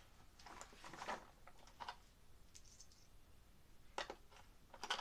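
Faint, scattered clicks and rustles of small things being handled, with a sharper tick about four seconds in and a couple more just before the end.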